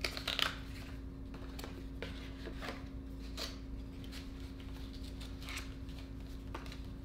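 Cardboard brush keeper rustling and scraping as a paintbrush is slid in and out of it and the sleeve is folded, in short scratchy strokes a second or so apart, loudest near the start. A steady low hum lies underneath.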